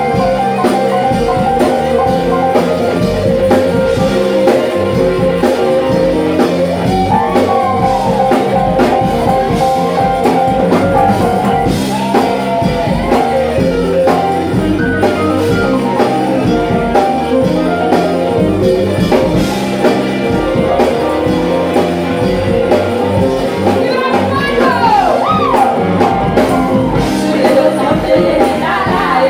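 A live band plays loud: drums, electric guitar, bass guitar and keyboard. A woman sings over them at times.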